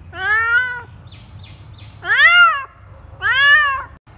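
A trapped kitten meowing three times, high-pitched calls of about half a second each that rise and fall in pitch.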